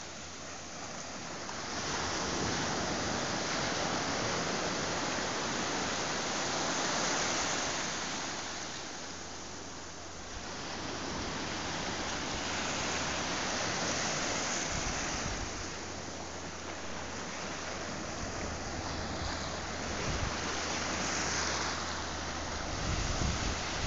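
Small waves breaking and washing up a sandy beach, the foamy surf hissing over the wet sand. The wash swells and eases every several seconds.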